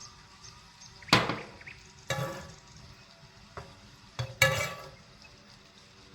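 Kitchen utensils knocking and scraping against cookware: a sharp clank about a second in, another at two seconds, and a close pair just past four seconds, each trailing off in a short noisy rattle.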